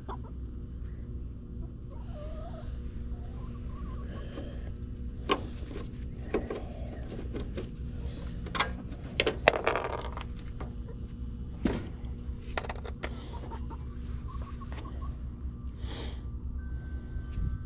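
Domestic chickens clucking now and then, with short calls scattered through, over the steady low hum of a heat pump's outdoor unit running.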